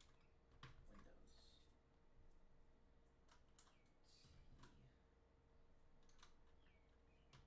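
Faint, isolated clicks from a mechanical keyboard, about seven spread unevenly over several seconds, rather than steady typing.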